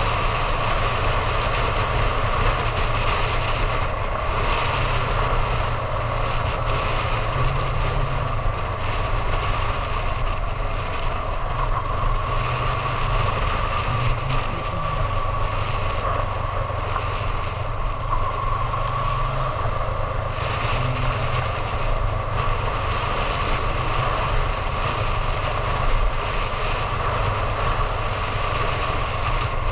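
Motorcycle engine, likely a Honda Hornet 750, running at a steady cruising speed with no big changes in revs, mixed with wind noise over the bike-mounted action camera.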